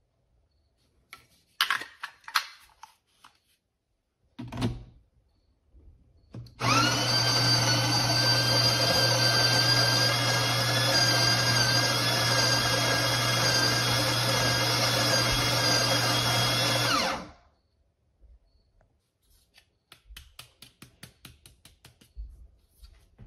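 The built-in burr grinder of a De'Longhi La Specialista Arte Evo espresso machine comes on suddenly and runs steadily for about ten seconds, then stops. A few clicks and knocks come before it, and light ticking follows it.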